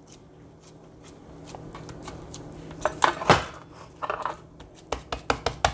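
Hands patting and slapping raw ground-meat meatloaf into shape in a metal baking pan. It starts with a few scattered pats about three seconds in, then becomes a quick run of slaps, three or four a second, near the end.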